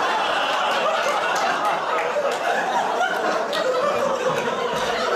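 A small audience laughing together, a steady mass of many overlapping voices.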